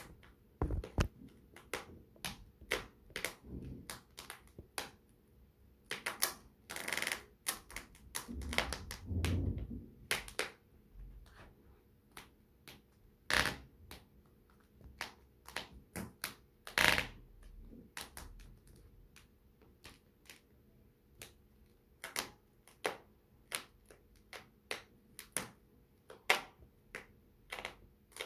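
Irregular light clicks and taps, roughly one or two a second, with a brief low rustle about nine seconds in.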